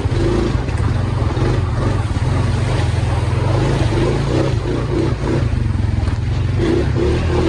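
ATV engine running steadily at riding speed, its pitch wavering a little as the throttle changes.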